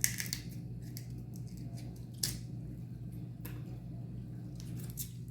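Eating sounds from a seafood boil close to the microphone: scattered crisp clicks and cracks over a steady low hum.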